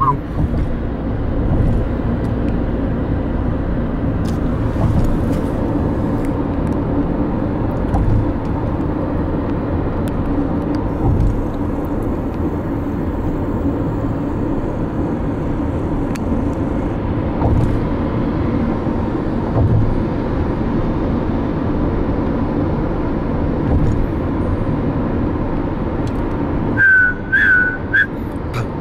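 Steady road and engine noise heard inside a car cruising on a highway, a low even rumble. Near the end a few whistled notes start up.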